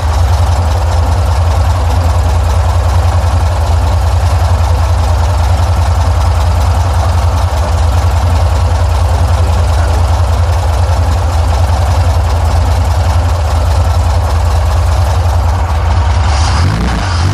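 Volkswagen Safari (Type 181) 1600 cc air-cooled flat-four engine idling steadily as it warms up, with a brief change in the engine note near the end.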